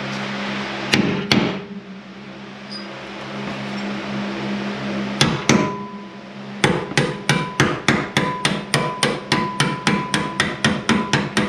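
Hammer blows on a rust-seized lower control arm bolt of a 2003 Jeep Wrangler, driving it out of the bushing's rusted steel sleeve. Two blows about a second in, two more about five seconds in, then steady rapid blows about three a second, many with a metallic ring.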